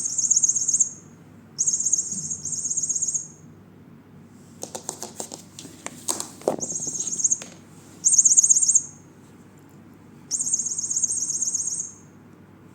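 Electronic chirping from a sound-making cat toy, going off in five high-pitched bursts of about a second each, with clicks and knocks from the toy being handled around the middle.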